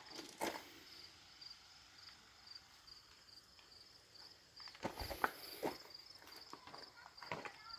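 Footsteps on gravel: a step about half a second in, a few steps around five seconds in and another near the end. Behind them an insect chirps faintly in a steady pulsing rhythm.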